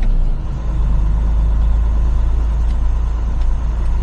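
Semi truck's diesel engine and cab noise heard from inside the cab while driving: a steady low rumble that dips briefly about a third of a second in.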